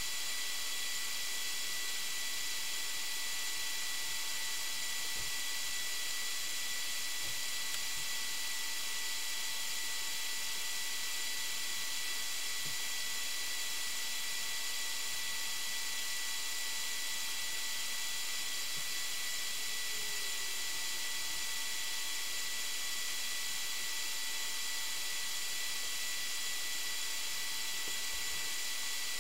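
Steady hiss with a faint, constant high electronic whine made of several fixed tones: the recording device's own self-noise, with no distinct event in it.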